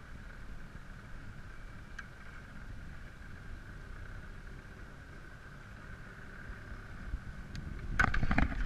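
A landing net scoops a rainbow trout out of the river beside a boat, with water splashing and a few sharp knocks near the end. Before that there is only a steady low hiss.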